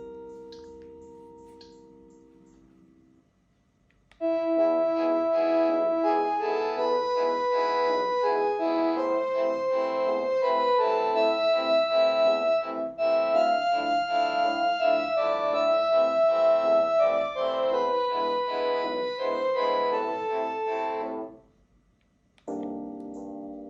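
Panasonic KX-TGD322 cordless phone playing its built-in electronic melody ringtones. A held chord fades out over the first few seconds, then after a short pause a new multi-note tune plays for about 17 seconds and cuts off, and another begins near the end.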